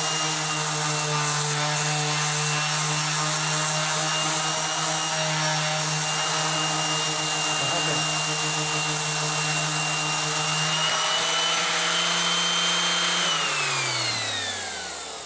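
Harbor Freight 5-inch random orbital palm sander running steadily while sanding a wooden 2x4. About 13 seconds in it is switched off, and its pitch falls as it spins down.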